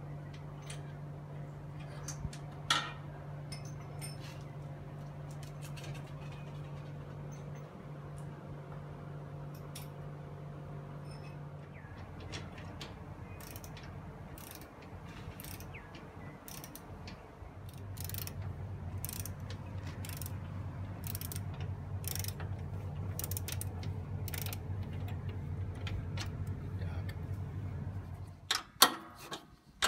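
A socket ratchet wrench clicking while it works bolts on a ride-on mower's rear transaxle. The clicks come on and off, then in loud quick runs near the end, over a steady low hum.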